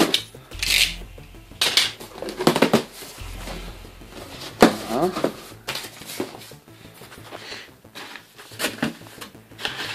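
Cardboard box being opened by hand: a box cutter slitting the tape, cardboard flaps scraping back and packing paper rustling, in short bursts with pauses between.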